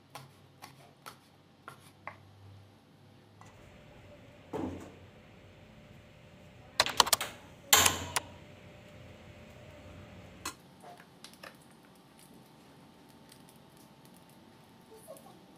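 Kitchen knife chopping on a wooden cutting board in quick light taps at the start. Later a two-burner gas stove is lit: several sharp igniter clicks about seven seconds in, then another burst as the burner catches, the loudest sounds here.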